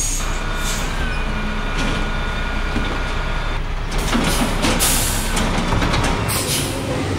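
Garbage truck sound effect: a heavy truck engine running steadily, with short bursts of hissing and clatter from about halfway through.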